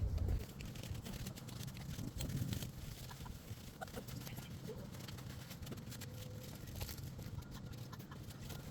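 Faint scattered clicks and light metallic taps of small brake hardware being handled, as the pad retaining clips are taken out of the caliper bracket and cleaned.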